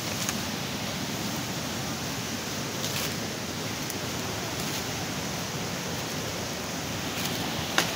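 Steady rushing hiss of a mountain creek's flowing water, with a few faint clicks of steps on the leaf litter and one sharper click near the end.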